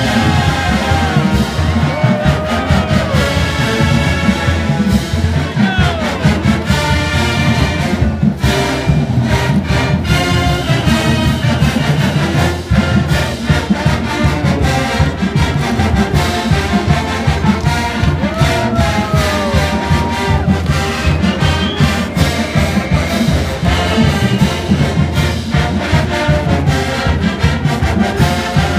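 Large college marching band playing: massed brass over percussion, loud, with a steady beat.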